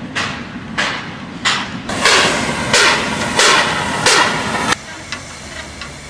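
Narrow-gauge steam locomotive working a train, its exhaust chuffing in sharp even beats about three every two seconds. From about two seconds in a continuous steam rush runs under the beats. The sound cuts off abruptly just before the end, leaving quieter light clanks.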